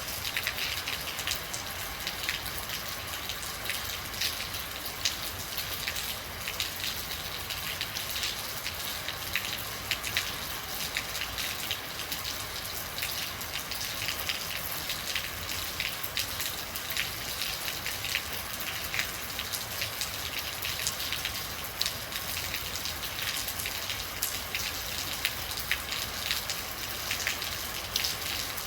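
Steady rain falling, with many individual drops ticking sharply on a hard surface, scattered irregularly over a continuous hiss.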